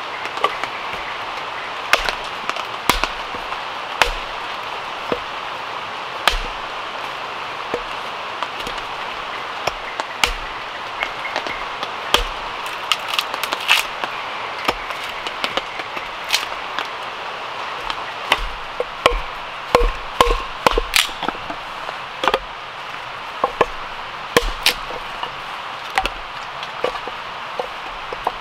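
Small hatchet chopping and splitting firewood into kindling: sharp, irregular strikes, a few seconds apart at first and coming in quick runs in the second half, over a steady background hiss.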